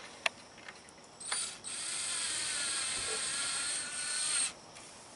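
Cordless drill driving a wood screw: a short blip of the trigger about a second in, then the motor runs steadily for about three seconds as the screw goes in, and stops.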